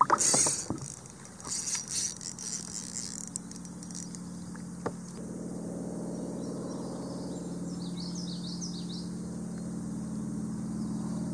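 A few sharp clicks and handling rattles of fishing tackle at first. About five seconds in, the steady drone of a propeller plane's engine begins and grows slowly louder as it comes overhead.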